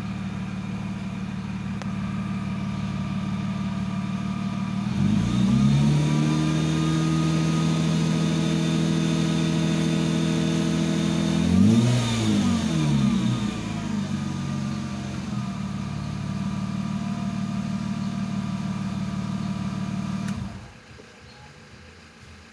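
BMW 323i E36's M52 2.5-litre inline-six warming up: idling, then held at raised revs for several seconds, blipped once to a quick peak and let fall back to idle. The engine sound cuts off abruptly near the end.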